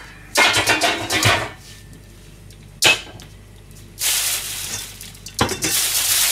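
Kitchen handling noises: a clatter in the first second or so and a sharp clink about three seconds in. From about four seconds a steady hiss sets in, with a knock near the end.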